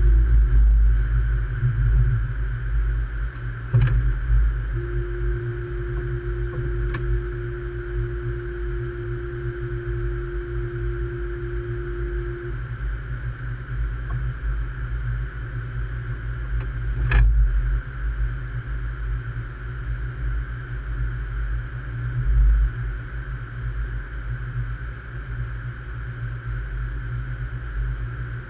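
Light rail train slowing to a stop at an underground platform and then standing with its onboard equipment humming low and steadily. A steady tone is held for about eight seconds early on, and a few sharp knocks are heard, the loudest about two-thirds of the way through.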